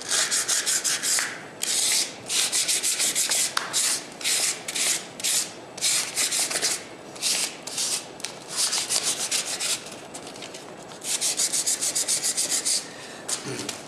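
Sandpaper rubbed by hand over a plaster lifecast of a face: quick back-and-forth scratchy strokes, about four to five a second. The strokes come in runs of a second or two with short breaks, and there is a longer lull about ten seconds in.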